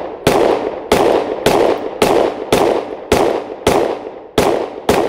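Sig Sauer M17 9mm service pistol firing full-power 124-grain NATO rounds in a steady string: about nine shots at a little under two a second, each cracking sharply and dying away before the next.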